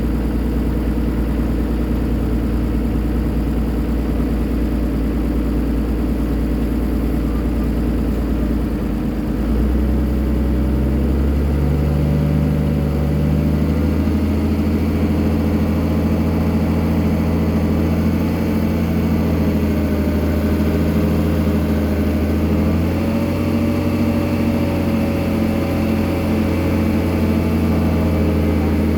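Motor of a spiral auger drilling machine running steadily. About nine to ten seconds in, its pitch and level rise a little, then hold.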